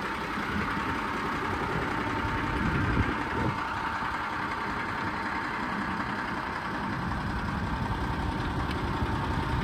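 Foden 6x6 recovery truck's diesel engine idling steadily, with a faint steady whine above the engine note.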